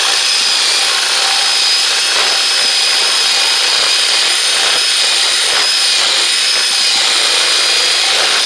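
Electric drill with a 1/2 inch paddle bit boring into the wood, running steadily with a constant high whine.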